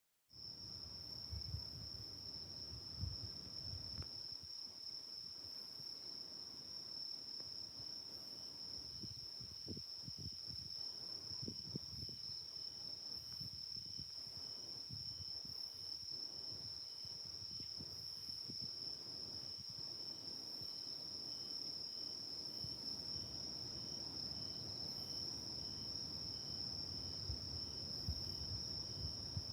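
Night insects calling: one continuous, steady high-pitched trill, joined from about nine seconds in by a fainter, lower chirp repeating at an even pace.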